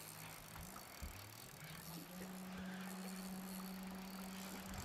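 Electric trolling motor humming, stepping up in pitch about two seconds in and then holding steady, as the boat is steered away from the oyster rocks during a fish fight.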